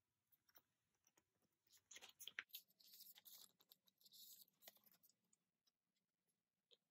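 Very faint rustling and light clicks of photocards and plastic card sleeves being handled, clustered between about two and five seconds in.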